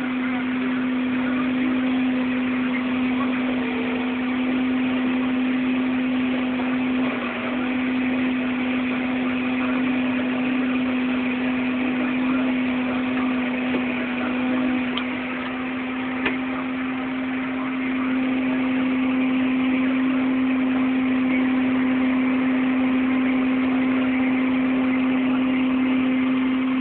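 Farm harvest machinery running steadily: a constant engine drone with one strong, unchanging hum, as wheat is unloaded on the go from the combine to the grain cart.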